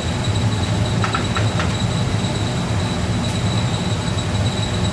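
Steady low hum of kitchen machinery with a thin, constant high whine, and a few light clicks about a second in.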